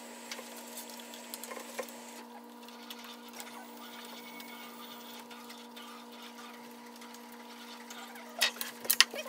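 Small clicks and taps of hands handling screws and parts on a metal LED light fixture, over a steady electrical hum. A few sharper, louder knocks come near the end.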